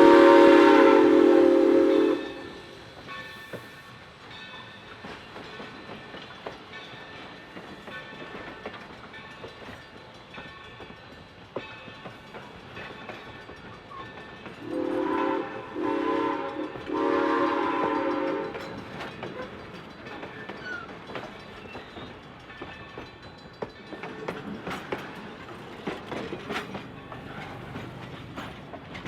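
Train whistle blowing: one blast ending about two seconds in, then a group of blasts around the middle with the last one longest. Between the blasts, the train rolls past with faint clicking from the wheels on the rail joints.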